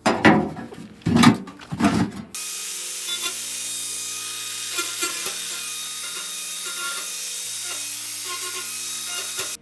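Three loud bumps in quick succession, then a steady hissing rush that starts suddenly about two seconds in and holds evenly, over soft background music.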